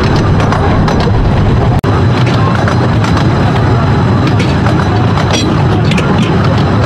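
Steady loud rumble and rattle of a narrow-gauge passenger train heard from an open carriage, with wheels clicking and clattering on the track and wind on the microphone. The sound cuts out for an instant just under two seconds in.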